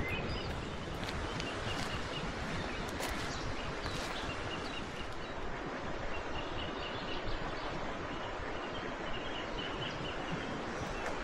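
Steady outdoor background noise, with small birds chirping now and then and a few faint clicks.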